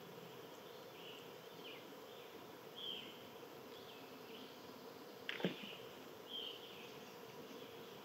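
Outdoor backyard nature ambience: a short high chirp repeated roughly once a second over a steady low hum. One sharp click about five and a half seconds in is the loudest sound.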